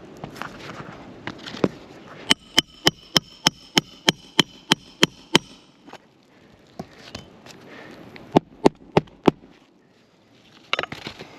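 Hammer striking a roof snake, a flat metal nail-driving bar slid under an asphalt shingle, to set a roofing nail: a fast run of about a dozen sharp, ringing strikes, then four more a few seconds later. This is the prescribed repair method, and the speaker says the pounding scuffs granules off and tears the brittle shingle.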